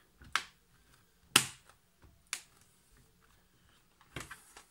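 Plastic clips of the Acer Aspire ES1-132 netbook's bottom case snapping into place as the case is pressed down: four sharp clicks, roughly a second apart, the second the loudest.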